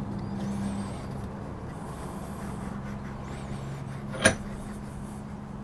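Hands working a conduit strap held in a bench vise: faint handling noise with one sharp click about four seconds in, over a steady low hum.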